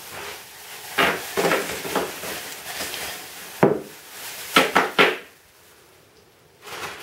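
Ice cubes clinking and shifting inside a plastic bag as it is handled, with the plastic rustling: several short clatters over the first five seconds.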